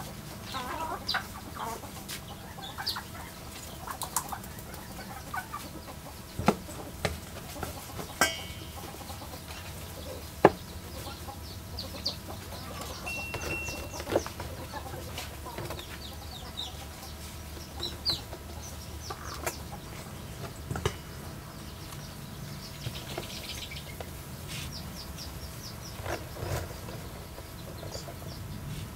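Chickens clucking in the background, with scattered sharp clicks and knocks of a metal spoon and ingredients against a stainless steel bowl.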